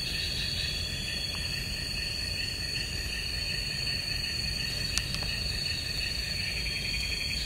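Night insect chorus, a steady high-pitched trilling at several pitches, over a low steady rumble; one faint click about five seconds in.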